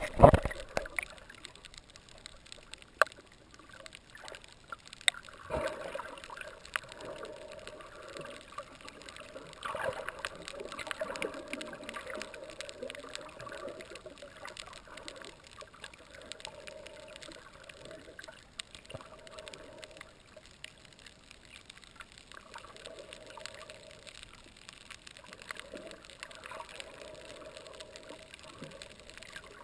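Underwater sound picked up through an action camera's waterproof housing: a splash as it goes under at the start, then muffled sloshing and gurgling water with many scattered sharp clicks and crackles, swelling a few times.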